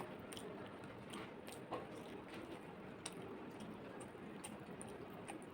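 Close-up eating sounds of a person chewing rice with mutton curry: soft wet squishing and chewing with scattered small mouth clicks.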